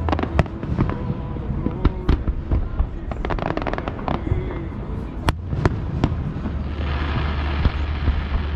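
Aerial fireworks going off: many sharp bangs and crackling pops over a low rumble, with a dense shower of crackle near the end.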